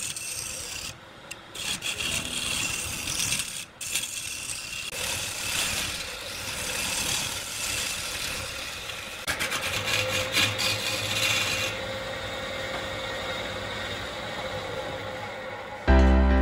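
Wood being rubbed and rasped, a continuous scratchy noise with short breaks, typical of shaping or sanding a turned workpiece. A low steady hum comes in about two-thirds of the way through, and music starts just before the end.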